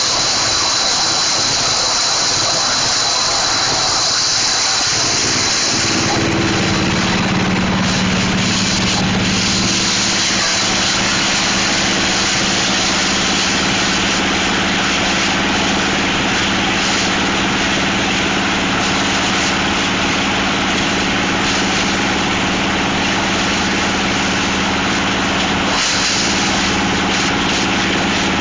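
Plastic shredder machine running steadily, with a dense hiss. About six seconds in, a steady low hum joins it and holds.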